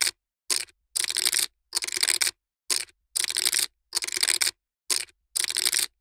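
Poker chips being shuffled by hand: bursts of rapid clicking clatter as the chips interleave, in a repeating pattern of one short burst and then two longer ones about every two seconds, with dead silence between.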